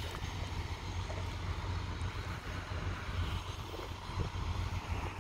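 A steady low rumble with a faint hiss above it.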